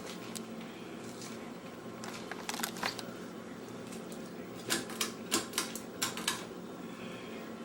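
Old Evergo Roma Emperor ceiling fan running with a steady motor hum. Two irregular runs of sharp clicks come through it, one about two and a half seconds in and a longer one around five to six seconds.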